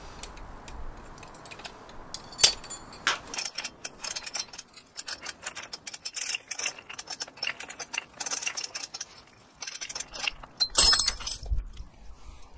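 Metal chain and hook clinking with rapid irregular clicks as a one-ton manual chain hoist is pulled to load an aluminium test specimen, with one sharp metallic click about two and a half seconds in. About eleven seconds in there is a louder metallic clatter as the specimen gives way and the hook swings free.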